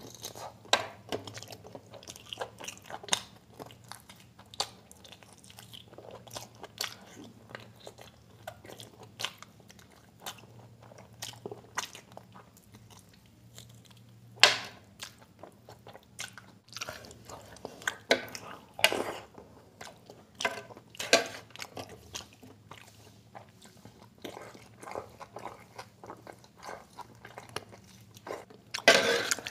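Close-up mouth sounds of a person eating mutton curry and biryani by hand: wet chewing and biting, with meat pulled off a mutton bone, in irregular sharp clicks and a few louder bites about halfway and near the end.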